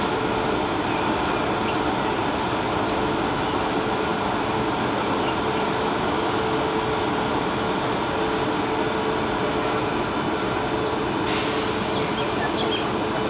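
Electric-hauled AC superfast express passenger train pulling slowly out of a station, its coaches rolling past on the track with a steady rumble and a steady hum. A hiss joins near the end.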